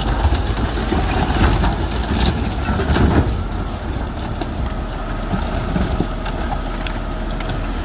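Heavy machine's engine running steadily while it pushes down and crushes a debris-filled structure, with sharp cracks and crunches of breaking material, busiest in the first three seconds.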